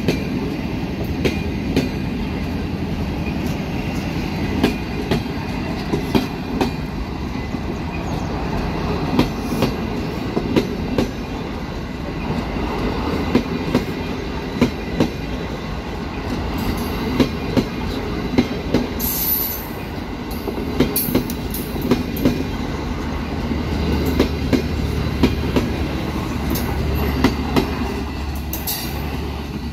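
Departing passenger train rolling by on the track: a steady low rumble, with a run of clicks and knocks as the wheels cross rail joints. A brief high wheel squeal comes about two-thirds of the way through.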